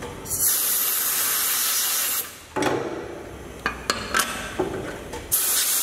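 Compressed-air blow gun blasting metal chips and coolant off a machined fixture: one hiss lasting about two seconds, then a few light metallic clinks, then a second short blast near the end.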